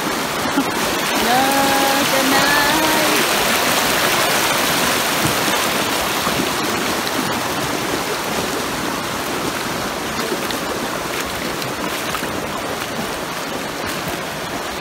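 Shallow river running fast over rocks in a riffle: a steady wash of flowing water.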